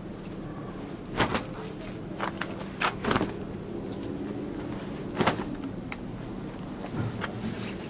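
About ten short, sharp clicks and knocks at irregular intervals, bunched between one and three seconds in, with a few more later, over a steady low hum.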